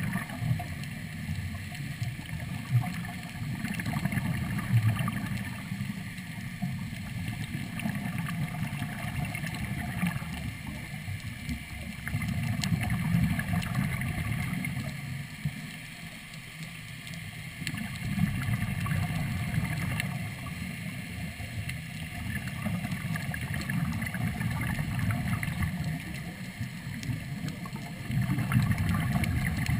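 Muffled underwater sound of a diver breathing from a Third Lung hookah regulator: exhaled bubbles rumble and gurgle, swelling and fading every few seconds, with scattered faint clicks.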